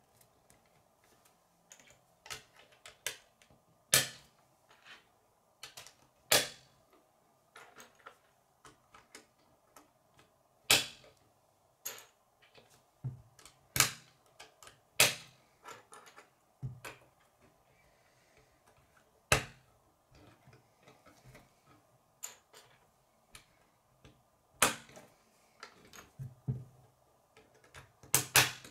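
Plastic K'nex rods snapping into connectors and pieces clicking against a wooden tabletop: irregular sharp clicks, the loudest a few seconds apart with smaller ones between, over a faint steady hum.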